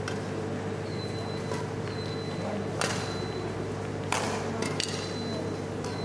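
Badminton rally: rackets strike the shuttlecock sharply twice, about a second and a half apart, with short high squeaks of shoes on the wooden court floor, over a steady low hum.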